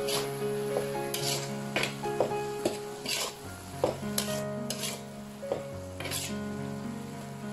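Metal spatula scraping and turning beef and potato slices frying in a wok, with sizzling and about ten sharp scrapes against the pan. Background music with held notes plays underneath.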